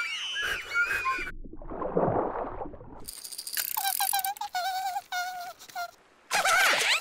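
Cartoon sound effects: squeaky gliding cries, then a rattling noise, then a run of short pitched notes, ending in a loud burst with rising squeals near the end.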